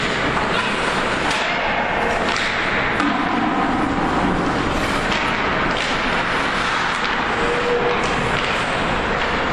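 Ice hockey game in an arena: a steady din of skates on ice and arena noise, broken by several sharp knocks of sticks and puck.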